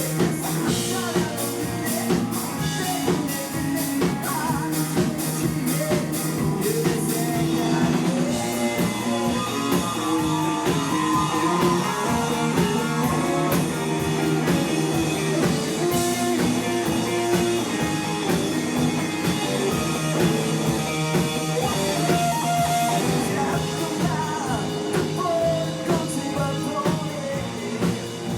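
Rock band playing live: drum kit, guitar and a sung vocal line, with dense drum strokes in the first several seconds.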